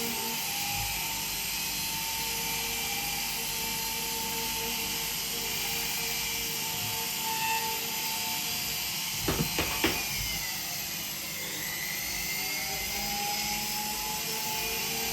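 Jeweller's small rotary tool running with a steady whine. A few sharp knocks come about nine seconds in, and its pitch then dips and rises again as the tool works the metal.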